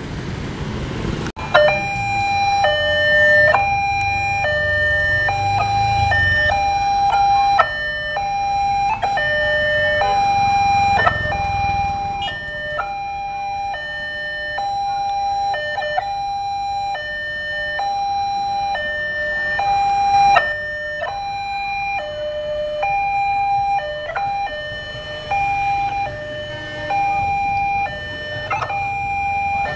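Railway level-crossing warning alarm sounding a repeating two-tone electronic signal. It switches between a higher and a lower tone about once a second, warning that a train is approaching. A low engine rumble from waiting motorbikes sits under it in places.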